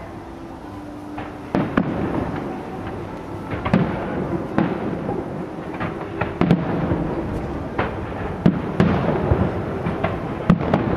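Aerial firework shells bursting at a distance: a series of sharp booms, each trailing off in a rumbling echo, starting about a second and a half in and coming every one to two seconds.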